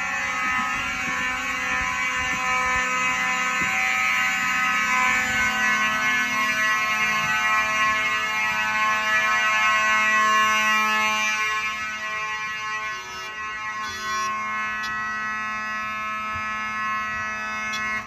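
Simplex fire alarm horns sounding together in a continuous steady blare during an alarm test. They cut off abruptly at the very end as the system is silenced at the control panel.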